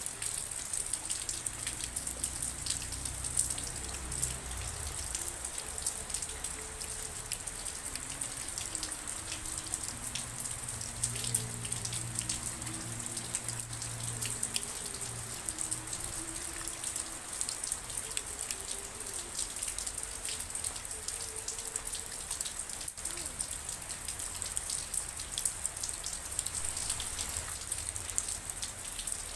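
Steady rain: an even hiss with many distinct drops striking surfaces.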